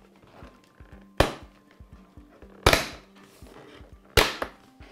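Three loud sharp cracks, about a second and a half apart, as the plastic clips of an iMac G4's white LCD bezel snap while it is pried off by hand; the clips are breaking.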